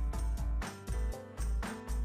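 Background music with a steady beat, strong bass and drum hits.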